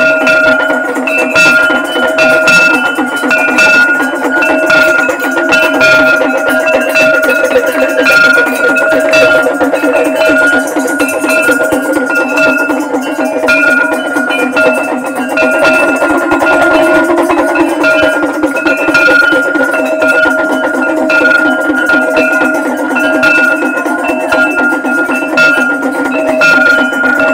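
Live devotional aarti music: a brass plate (thali) beaten with a wooden stick in a fast, even rhythm, with hand clapping, over steady ringing metallic tones.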